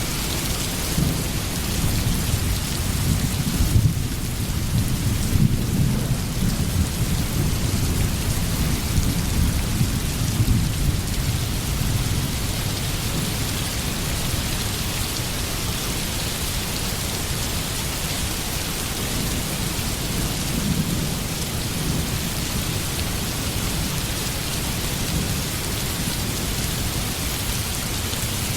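Steady heavy rain hissing, with low rolling thunder rumbling through the first dozen seconds and swelling again briefly about two-thirds of the way in.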